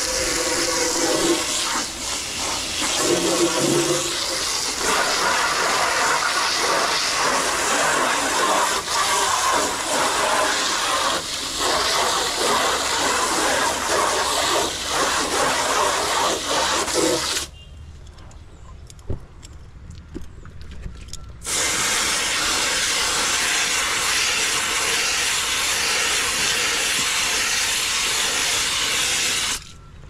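Water from a hose spray nozzle hissing as it is sprayed through an air conditioner's dirt-clogged condenser coil to wash it out. The spray cuts off suddenly about two-thirds of the way through, resumes about four seconds later and stops again near the end.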